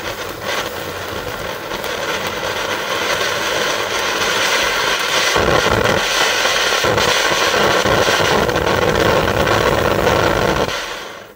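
Heron F1 ground fountain (volcano) burning, a steady loud rushing hiss of spraying sparks. It grows louder and fuller through the first half and cuts off near the end as the fountain burns out.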